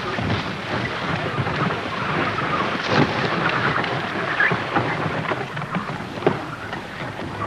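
Strong wind rushing across open ice and buffeting the microphone, with a few sharp knocks, about three seconds in and again near the end.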